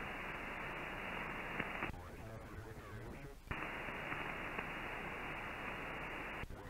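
Shortwave SSB receiver audio from a Yaesu FT-2000 on the 20-metre band: steady band hiss with no one transmitting. About two seconds in the hiss drops for a second and a half and a faint, garbled sideband voice shows through, then the hiss comes back as the receiver settles on a new, quiet frequency.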